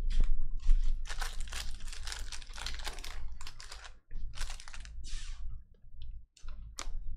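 Trading cards being handled by hand: a quick run of clicks and rustles as card slides and snaps against card while a freshly opened pack is sorted through, with a short pause about four seconds in.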